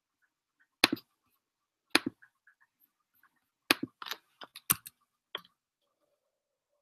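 Sharp, irregular clicks of someone working a computer, as with keys and mouse buttons: single clicks about a second and two seconds in, then a quick cluster of several between about four and five seconds in.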